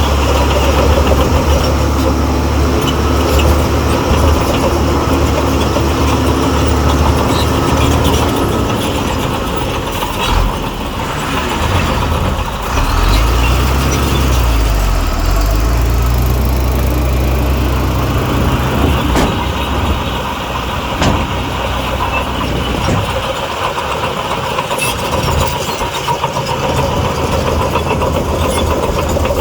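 Heavy diesel earthmoving machinery engine running steadily, its pitch rising and then falling back around the middle as it revs up.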